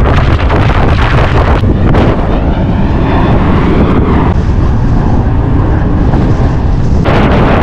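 Wind buffeting the microphone of a camera above a moving car's open sunroof, a loud steady rumble with road noise beneath, shifting abruptly a few times.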